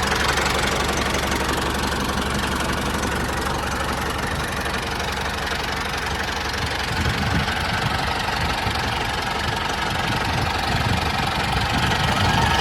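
An engine running steadily with a rapid, even chug and a low hum, as the mini tractor drives off.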